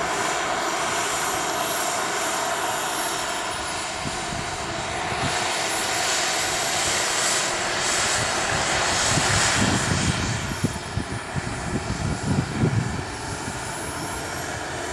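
JetCat P-80 model jet turbine running at low power as the RC jet taxis: a steady rush with a high whine that dips in pitch twice and climbs back. Rough low buffeting comes in over the last few seconds.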